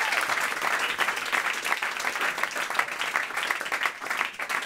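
Audience applauding, dense clapping that thins out near the end.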